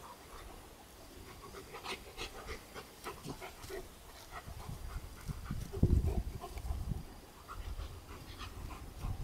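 A Berger Picard puppy and a larger black dog play-fighting: quick panting and short snuffly play noises through the first half, then heavier low thumps about six seconds in.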